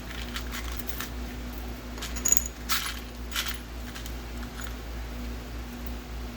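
Small loose metal screws clinking and clicking as they are picked through by hand, with the loudest cluster of clicks and a brief metallic ring about two to three and a half seconds in.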